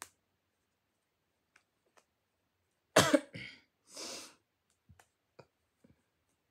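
A person coughs sharply about three seconds in, followed by a shorter breathy rush of air. Faint small ticks come from hands handling a pipe cleaner.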